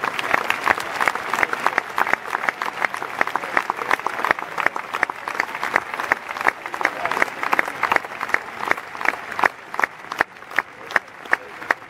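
Golf gallery applauding a putt: dense clapping at first that thins out to scattered single claps and grows quieter toward the end.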